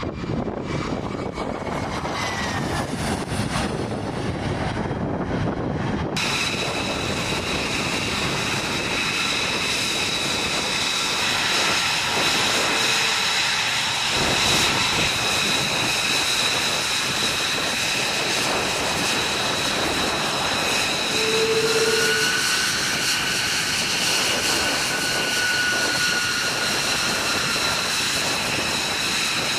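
Jet aircraft engine running: a steady rushing noise with a high whine, the character changing abruptly about six seconds in.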